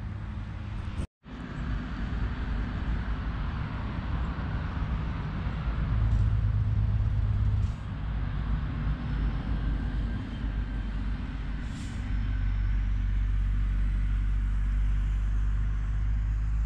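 Steady low rumble of road traffic, with louder swells in the low end partway through and near the end. The sound cuts out completely for a moment about a second in.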